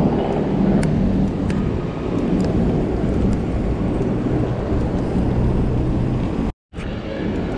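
Steady rumble of city road traffic heard while riding, with a few light clicks. The sound cuts out completely for a moment near the end.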